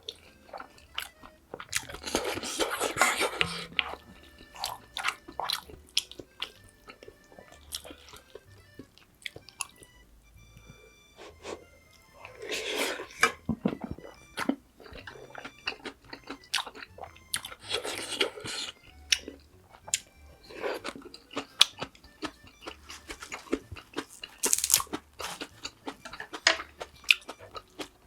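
Close-miked eating: a person chewing and crunching mouthfuls of food, with many wet mouth clicks and several louder crunchy bites, over faint background music.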